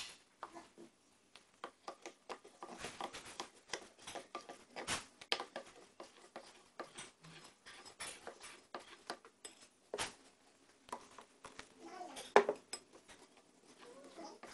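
A spoon stirring batter in a glass bowl, clinking and scraping against the glass in quick, irregular knocks. The sharpest knocks come right at the start and about twelve seconds in.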